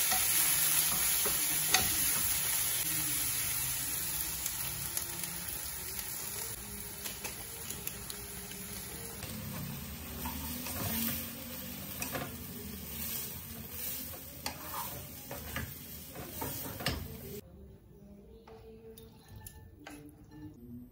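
Tofu and vegetables sizzling in a wok while a metal spatula stirs and tosses them, with scattered clicks and scrapes of the spatula against the pan. The sizzling slowly grows fainter and cuts off sharply near the end.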